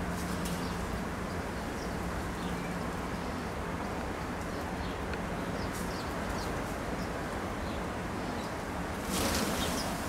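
A flock of house sparrows feeding, with scattered short chirps over a steady low background rumble. About nine seconds in, a brief louder whoosh of wings as the flock flushes.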